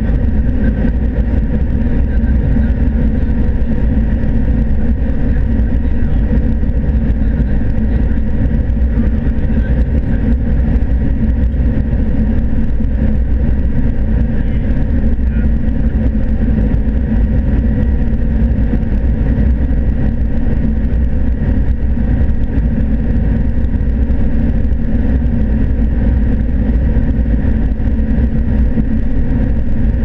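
John Deere S680 combine harvesting corn, heard from inside the cab: a steady, even drone of the engine and threshing machinery under load, with a few constant hum tones.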